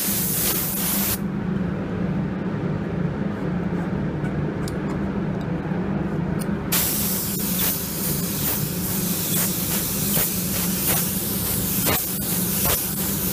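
Air-fed paint spray gun spraying paint for a blend repair: a short hiss that cuts off about a second in, then a continuous hiss of spraying from about seven seconds in, over a steady low hum.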